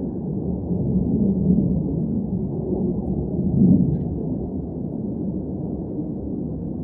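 Low, steady jet engine rumble from F-15 fighter jets, swelling briefly about three and a half seconds in.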